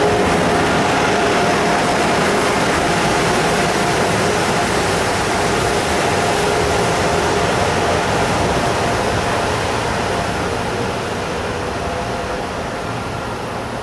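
Amtrak Acela Express train rolling slowly along the platform: a steady rumble and rush from its wheels and running gear, with a faint whine that fades partway through. The sound eases off gradually as the train slows.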